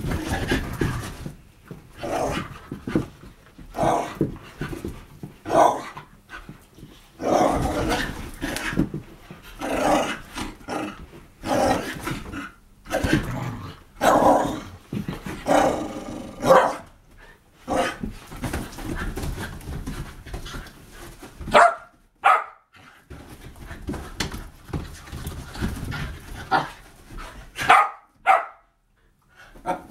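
Whippets play-fighting, growling and barking in short, irregular bursts, with a few sharper, higher yips about two-thirds of the way in.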